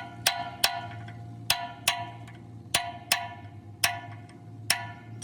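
Hammer blows on a steel part, each ringing metallically: about nine strikes, many in quick pairs, over a steady low hum.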